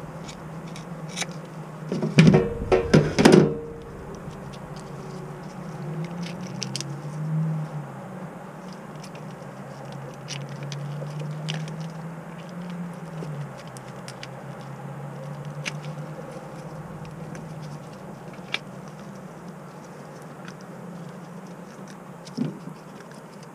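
Redear sunfish being gutted by hand over a plastic colander in a steel sink: a few loud cutting and handling sounds from kitchen shears about two seconds in, then scattered soft clicks and wet patters as the insides are pulled out, over a low steady hum.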